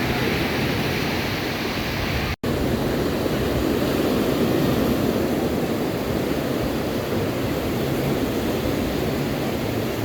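Steady rushing noise of ocean surf and wind on the microphone, broken by a brief drop to silence about two and a half seconds in.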